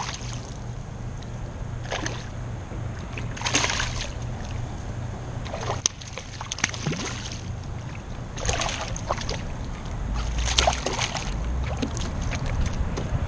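Small redfish thrashing at the surface beside a kayak as it is reeled in, in a string of short splashes spread over several seconds.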